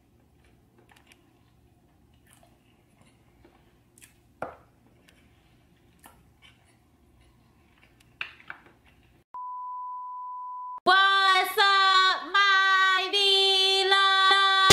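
Faint chewing and small mouth clicks from a person eating, over a low steady hum. About nine seconds in, a steady single-pitch beep holds for about a second and a half. Loud music with sliding, bending notes then starts abruptly and is the loudest sound.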